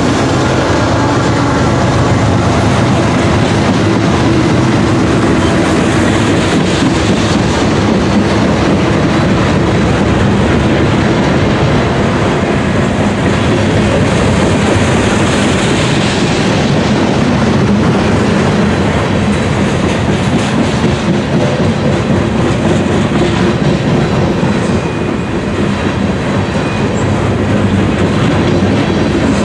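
Freight train cars rolling past close by: container flatcars on steel wheels running over the rails in a loud, steady rumble and clatter.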